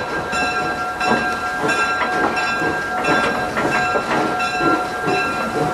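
A caboose rolling slowly along the track, shoved by a small 0-4-0T steam tank locomotive: a steady rumble with irregular knocks and clatter. A high ringing tone of several steady pitches runs through the whole sound.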